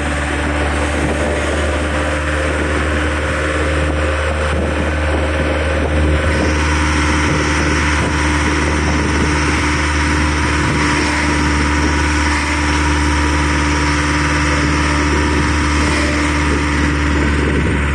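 Tourist road train driving along a street, its engine running steadily, with road and wind noise, heard from on board a passenger carriage.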